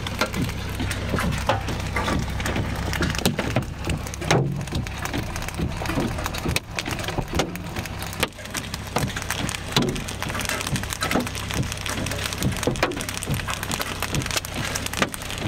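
Large hailstones hammering a vehicle's roof and windows, heard from inside the car as a dense, irregular stream of sharp knocks over a low, steady rumble.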